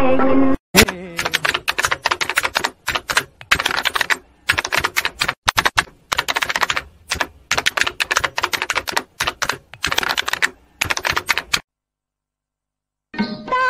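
A rapid, irregular clatter of sharp clicks and taps in quick clusters, like typing, that cuts off abruptly into dead silence near the end.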